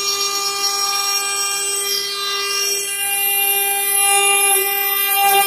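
Stone CNC router spindle cutting a jade workpiece held in a rotary-axis chuck, with water coolant spraying on the cut: a steady whine of several pitched tones over a high hiss.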